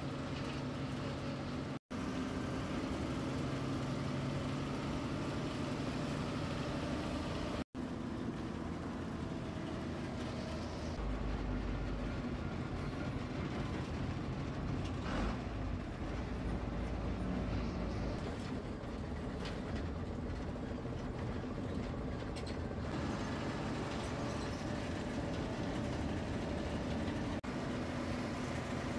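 MSRTC state-transport bus driving, its diesel engine running steadily with road and body rattle noise, heard from inside the cab beside the engine cowling. The sound cuts out briefly twice, about 2 and 8 seconds in.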